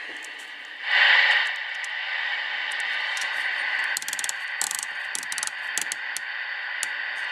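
Static hiss from the speaker of a Realistic TRC-424 CB radio, its audio working again after repair, with a louder surge of hiss about a second in. A run of sharp clicks and rattles comes from about four to seven seconds in.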